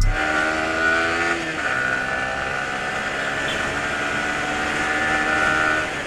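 Yamaha sport motorcycle's engine running steadily on the move, its note sagging a little in the first second and a half, then holding steady, over a rush of wind noise.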